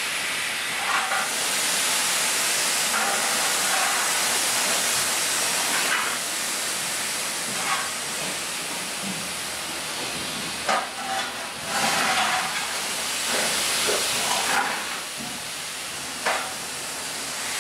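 Steady hiss of steam from a K-class steam locomotive standing in steam, with a few brief fainter sounds over it.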